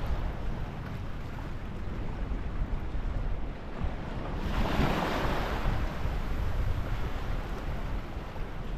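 Wind buffeting the microphone over the wash of choppy river-mouth water. A louder rushing swell comes about halfway through.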